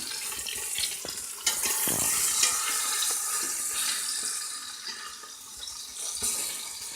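Flour-dusted oxtail pieces sizzling as they brown in an Instant Pot on sauté, a steady crackling hiss with a few sharp clicks.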